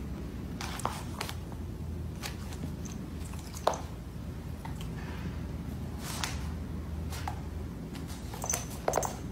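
Steady low room hum with scattered light taps and clicks as a kitten plays at a dog on a hardwood floor, the sharpest tap about three and a half seconds in. A couple of faint, brief high squeaks come near the end.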